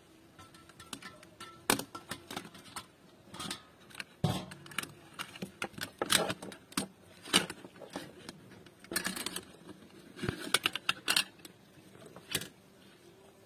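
Metal kebab skewers clinking and scraping against a steel tray as fried offal is pulled off them and handled: irregular sharp clinks, some in quick clusters.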